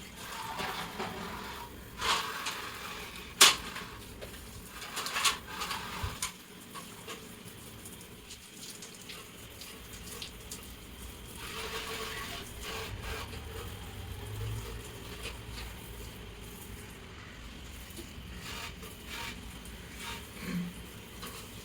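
Water running and splashing as table fan parts are rinsed, with several sharp knocks of the parts being handled in the first six seconds.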